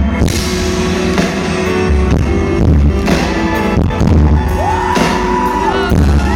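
Loud live pop-soul music from a band on stage: heavy bass notes and a steady drum beat, with a held high note that slides in about two-thirds of the way through and drops away near the end.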